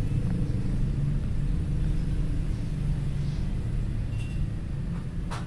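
Steady low rumble of an engine running, with a short click near the end.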